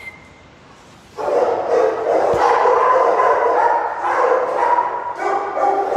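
Several dogs barking in shelter kennels. After a quiet first second the barking starts and the barks run together into a continuous din.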